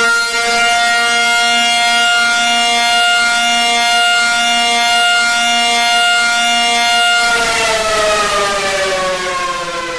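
Civil defense siren sounding a steady tone, then winding down with a falling pitch from about seven seconds in.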